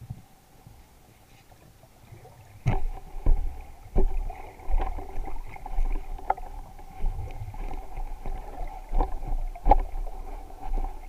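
Underwater noise picked up through a camera housing: a faint steady whine, then from about three seconds in repeated low thuds and knocks with a rumble, as the housing and gear are bumped and moved about on the seabed.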